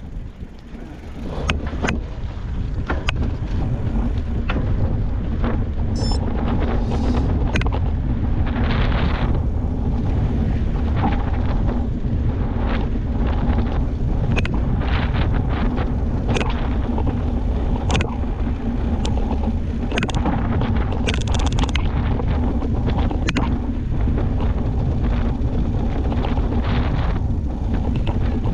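Wind rushing over the microphone of a GoPro on a moving mountain bike: a steady low rumble that builds over the first couple of seconds, with scattered clicks and rattles from the bike over the ground.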